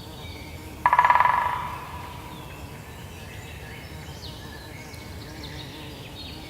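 A buzzing insect starts loud about a second in and fades away over the next second. Faint bird chirps follow over a steady forest background hiss.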